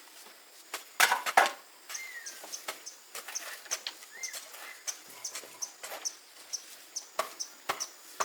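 A small bird chirping repeatedly, short high chirps about two or three a second, with a few sharp knocks about a second in.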